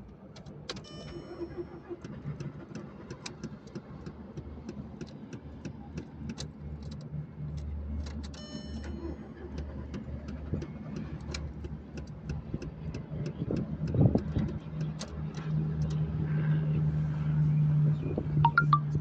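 Volkswagen Polo engine with a hard-start problem, turning over and running with many irregular sharp ticks. About fourteen seconds in it surges, and it then runs louder and steadier.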